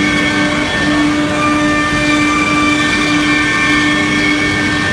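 CNC router machinery running steadily: a constant hum with a fixed tone over an even mechanical noise, as the vacuum table draws air through its holes.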